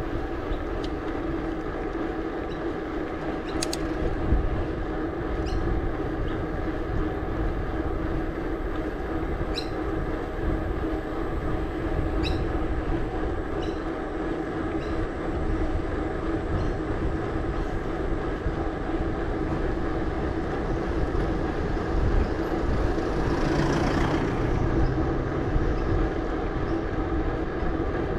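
Mountain bike rolling on pavement: its knobby tyres give a steady humming drone, with a few light clicks and rattles from the bike. A brief swell of hiss comes about three-quarters of the way through.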